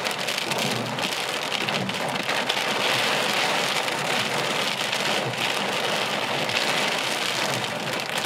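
Heavy thunderstorm rain falling steadily: a dense hiss dotted with the patter of single drops.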